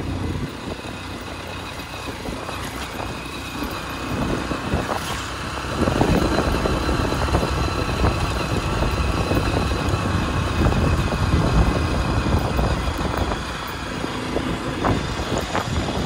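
Motorcycle being ridden along a rough gravel road: engine running under steady road and wind noise. It grows louder about six seconds in.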